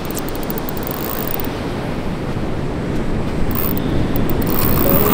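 Steady wind and breaking surf on an open beach, with wind rumbling on the microphone.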